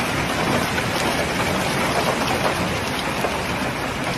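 Hailstones and rain pelting down steadily on a street and lawns: a dense hiss made of many small ticking impacts.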